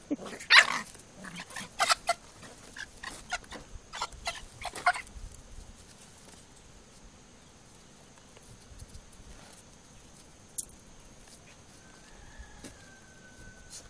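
A rooster and a puppy scuffling: a quick flurry of sharp flapping and scuffling noises for about the first five seconds, then mostly quiet apart from one sharp click about ten seconds in and a faint thin whistle near the end.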